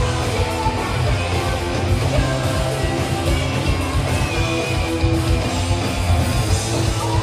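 Rock music with strummed electric guitar and a heavy low end, playing continuously.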